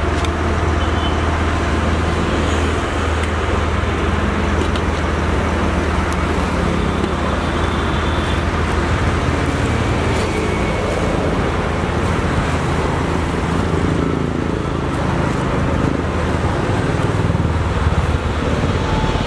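Steady road-traffic noise with a constant low rumble, and a few faint light clicks and rustles on top.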